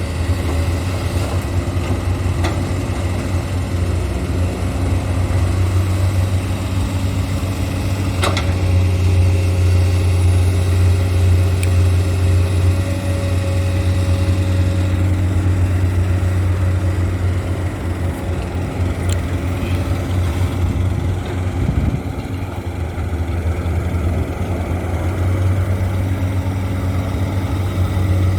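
Heavy diesel engines of an excavator and a dump truck running steadily with a low hum, with a sharp knock about eight seconds in.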